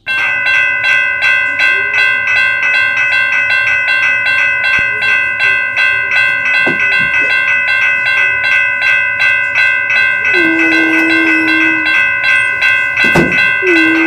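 Toy railroad crossing signal's electronic bell ringing: rapid, even dings about four times a second, starting suddenly and going on steadily. About ten seconds in, a low horn-like tone is held for about a second and a half over the bell.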